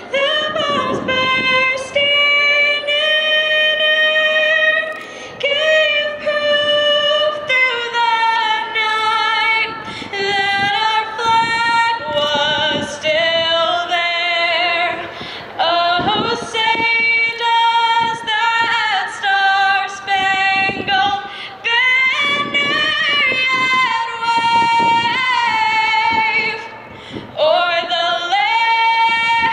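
A woman singing the national anthem solo, in long held notes that slide from one pitch to the next, with short pauses for breath between phrases.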